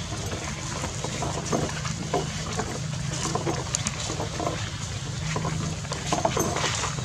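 Outdoor ambience with a steady low engine-like hum underneath and many short scuffs and rustles, as macaques move about over dry leaves and dirt.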